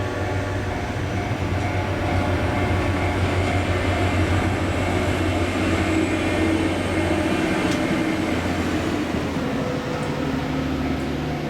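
Diesel engine of a multiple tie tamper, a railway track maintenance machine, running with a steady low hum. It gets a little louder in the middle.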